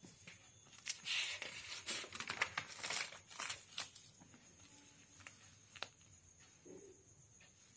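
Paper pages of a handwritten notebook being turned over, rustling and crinkling for about three seconds, followed by a single sharp click.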